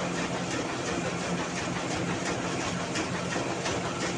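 Motor-driven mini rice mill running steadily, a low hum overlaid by a dense, even rattle of many small clicks as grain passes through the huller.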